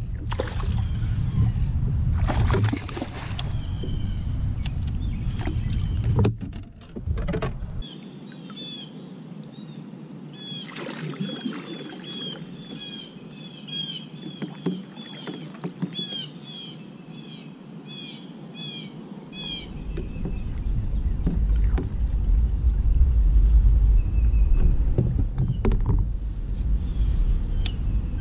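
Wind rumbling on an action camera's microphone, with the water and knocks of a kayak being paddled. In the middle stretch, where the rumble drops away, a bird repeats a short chirping call about twice a second.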